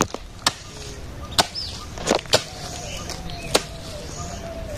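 Long-handled hoe chopping into dry, hard soil to clear weeds: about six sharp strikes at uneven intervals.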